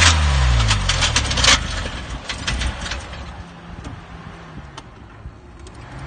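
Subaru engine with a severe rod knock, from a holed block, dropping back from a rev: loud hammering knocks and a falling engine note for about a second and a half, then the engine settles to a much quieter low running hum.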